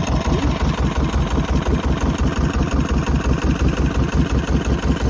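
Fishing boat's engine running steadily at idle, an even low pulsing throb.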